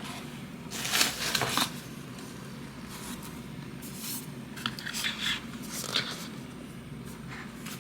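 Packaging being handled during an unboxing: short rustling and scraping sounds, the loudest lasting about a second from about a second in, with several smaller ones after.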